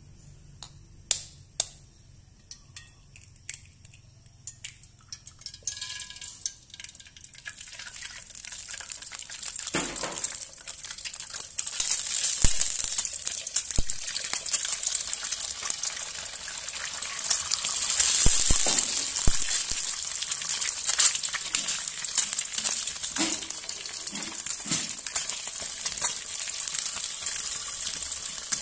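Duck eggs frying in hot oil in a wok. Scattered pops from the oil come first, then a loud sizzle builds after several seconds and keeps going, with a few sharp knocks among it.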